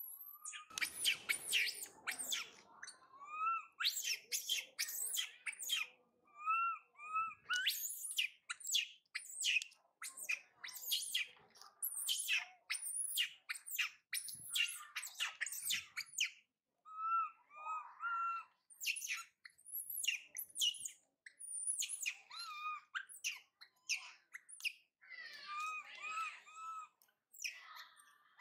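Infant long-tailed macaque screaming in distress: shrill, high-pitched cries repeated in quick series with short breaks, with shorter rising squeaks in between. It is the crying of a baby left behind while its mother has gone off to forage.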